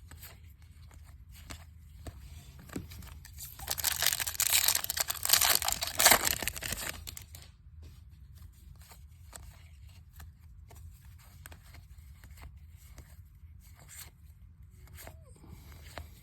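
A trading-card pack wrapper being torn open, a rough tearing and crinkling for about three seconds near the middle, with faint rustles and ticks of handling before and after.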